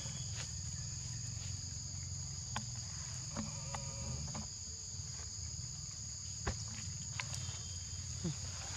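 Steady high-pitched drone of insects in the forest, two pitches held without a break, with a few soft clicks scattered through it.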